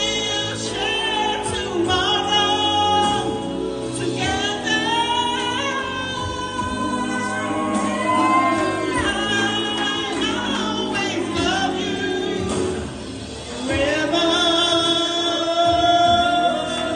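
A person singing over musical accompaniment, holding long notes with vibrato, with a brief break between phrases about two-thirds of the way through.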